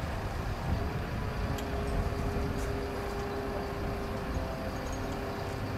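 Heavy mobile crane's diesel engine running steadily under load with a low rumble; a steady hum joins about a second in, with a few light clicks.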